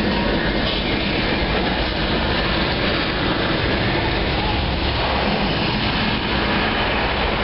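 Recorded Saturn V launch noise played over a theatre's loudspeakers: a loud, steady rumble with a rushing hiss on top.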